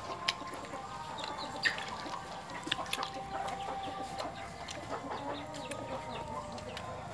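Chickens clucking, with scattered short sharp clicks.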